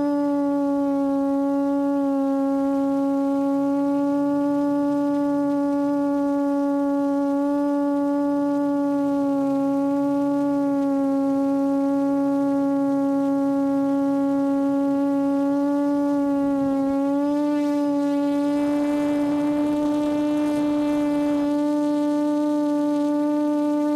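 QAV400 quadcopter's four Lumenier 1100kv brushless motors and APC 8x4.5 props hovering: a steady droning whine with a strong low note and overtones, its pitch stepping up slightly a little past halfway as the throttle changes. For about three seconds near the end a rougher rasping noise is added on top.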